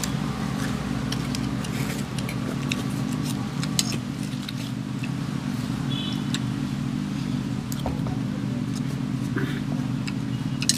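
A steady low engine drone with scattered light clicks and knocks.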